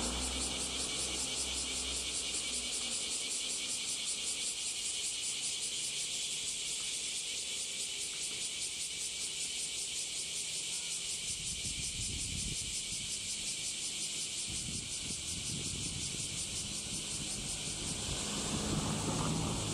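Cicadas buzzing steadily with a fast, even pulse, with a low rumble of road traffic underneath that swells as a vehicle passes near the end.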